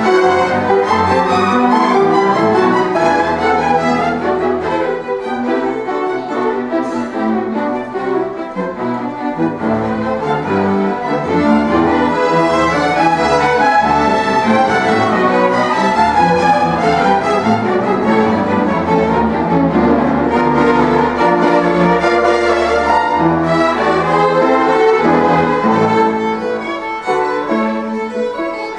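String orchestra playing, with violins carrying the melody over a low line of cellos, all notes bowed and sustained.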